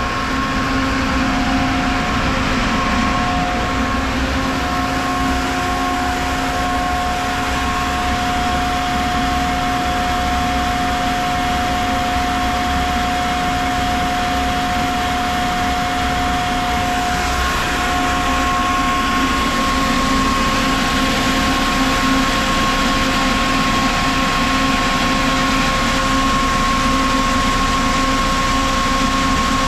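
Ingersoll Rand SSR-EPE50 50 hp air-cooled rotary screw air compressor running, a steady drone with several held tones. About 17 seconds in, the tone shifts: one pitch drops out and a higher one grows stronger.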